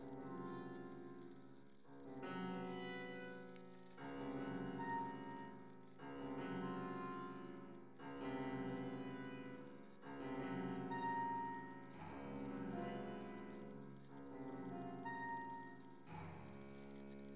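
Contemporary chamber quartet of clarinet, trombone, piano and cello playing a slow passage of sustained chords, a new chord coming in about every two seconds and each one swelling and then fading.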